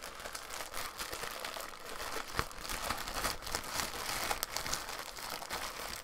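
Plastic postal mailer bag crinkling and crackling as it is handled and torn open, with a sharper crackle about two and a half seconds in.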